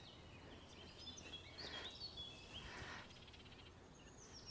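Faint birdsong, a scatter of short chirps and trills, over quiet riverside background.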